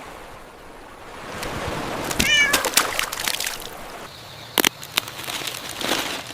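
A cat meows once, briefly, a little over two seconds in, among a few sharp clicks and knocks.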